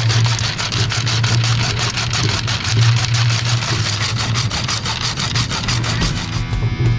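Hacksaw cutting through an aluminium roller-furler foil section in quick, even strokes. Music comes in near the end.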